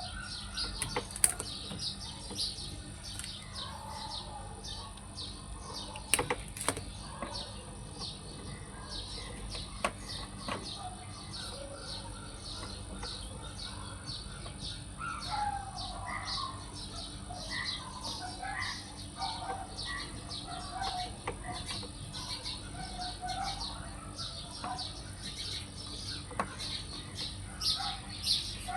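Small birds chirping rapidly and continuously over a steady insect drone, with more varied, lower chirps joining in the second half. A few sharp knocks sound about a second in and around six seconds in.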